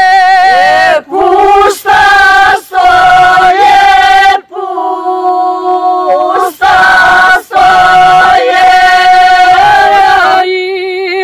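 A group of women singing a traditional Serbian folk song unaccompanied, in long held notes with short breaks for breath and phrases that slide at their ends.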